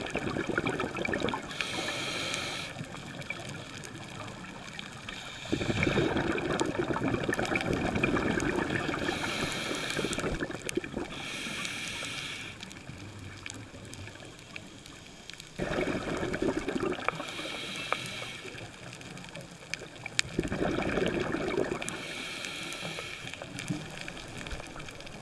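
Scuba diver breathing through a regulator underwater: a short hiss on each inhale, then a longer bubbling rush of exhaled air. The cycle repeats every few seconds, about four breaths in all.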